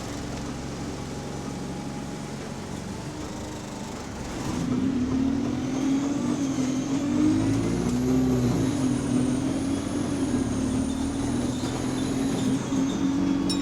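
Bus heard from inside, running quietly at first and then pulling away about four and a half seconds in, louder, with a wavering drivetrain whine. Under it runs the repetitive knocking that keeps pace with engine speed, which the rider takes for a mechanical fault.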